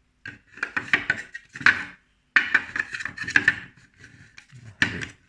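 A metal micrometer and its packaging being handled: clusters of knocks, clicks and scraping in two bursts of about a second and a half each, then a shorter one near the end.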